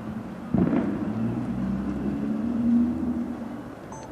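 A sharp firework bang about half a second in, followed by a low, steady rumble for about three seconds that fades near the end.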